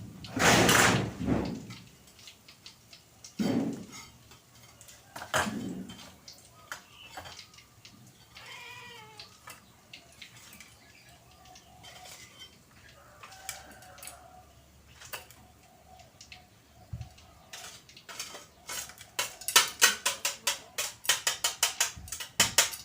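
Kitchen dishes and utensils knocking and clattering, with a few loud knocks early on. A cat meows about halfway through. Near the end comes a quick run of many sharp clinks, like a spoon tapping against a dish.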